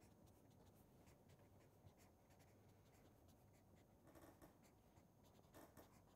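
Near silence, with the faint scratching and small taps of a felt-tip marker writing on paper.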